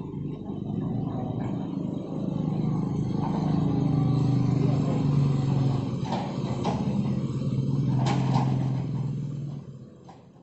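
Diesel engine of a Hitachi hydraulic excavator running steadily and working harder from about three seconds in, with a few sharp knocks around six and eight seconds in. It fades out near the end.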